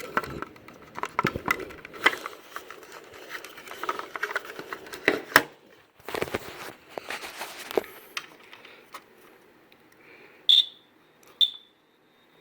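Handling clicks and rustles, then, about ten seconds in, the Sunbeam 45 7A smoke alarm's piezo horn gives two short, high chirps about a second apart as its test button is pressed. The chirps are weak and broken rather than a steady alarm, which the owner blames on this type of test button.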